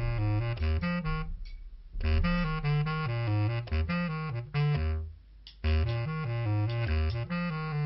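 Background film music: a lively tune with a moving bass line, which breaks off twice for well under a second.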